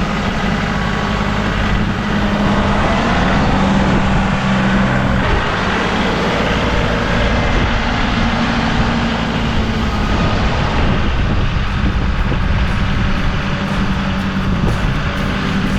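John Deere tractor engine running steadily.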